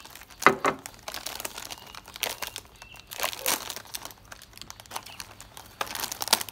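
Plastic snack packet crinkling as it is handled, then torn open near the end.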